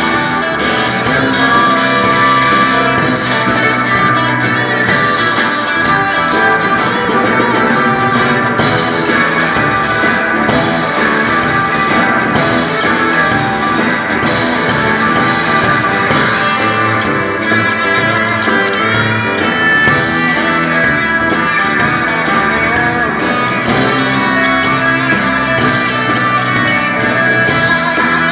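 Live band playing: two electric guitars, electric bass guitar and a Tama drum kit, at a steady loud level throughout.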